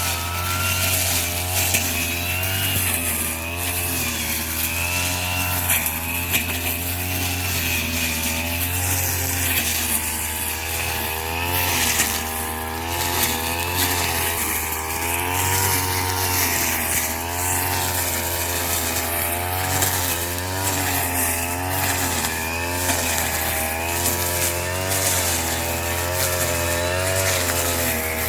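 Small petrol engine of a straw-cutting machine running continuously, its pitch rising and dipping every second or two as the engine speed changes under load while cutting rice straw.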